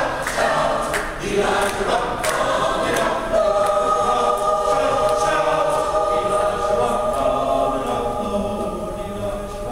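Mixed-voice choir singing a gospel piece under a conductor, moving through words at first, then holding a long sustained chord from about three and a half seconds in that slowly softens near the end.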